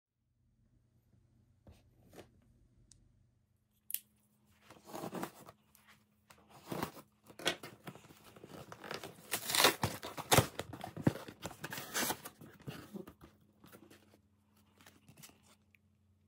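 Packaging being opened by hand for an unboxing: an irregular run of rustling, scraping and sharp clicks that starts about four seconds in, is busiest a little past the middle and dies away near the end.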